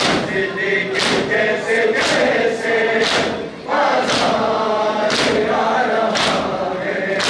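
Crowd of men chanting a noha in unison while beating their chests in time (matam), with a sharp chest-slap about once a second.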